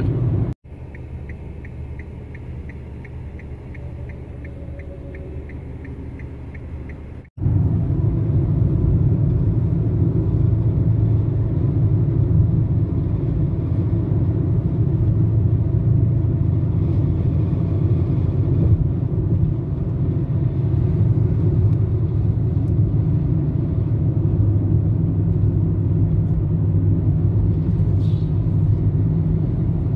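Steady road and engine rumble inside a small car's cabin at highway speed. The first few seconds are a quieter stretch with a faint regular ticking, about three or four a second, before it cuts to the louder rumble.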